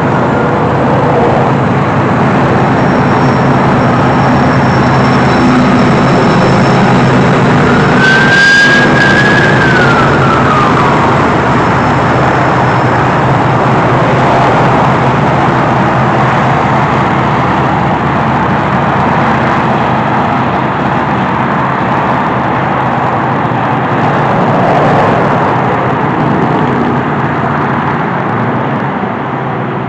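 BNSF coal train's diesel locomotives and cars rolling across an elevated rail bridge: a loud, steady rumble with a low engine drone. About eight seconds in, a brief high squeal holds and then falls away.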